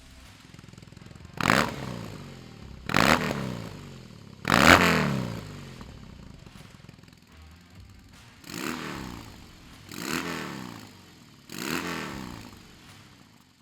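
BMW R18's big boxer-twin engine revved through a Dr. Jekill & Mr. Hyde switchable valved exhaust: three loud throttle blips about a second and a half apart, then after a pause three quieter blips, each rising in pitch and falling back to idle.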